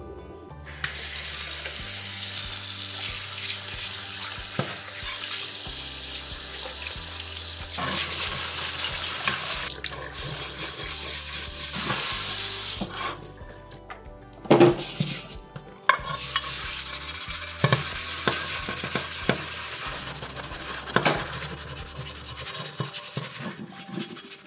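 Tap water running onto an iron griddle plate in a sink while it is scrubbed with a tawashi brush and then a detergent sponge, the washing step of seasoning a new plate. The water noise starts about a second in, breaks off briefly with a couple of knocks a little past halfway, then resumes, over quiet background music with a low bass line.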